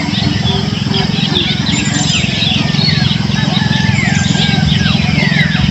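Many birds chirping and calling together: a dense chorus of short chirps and quick falling whistles. Underneath runs a steady, rapidly pulsing low drone.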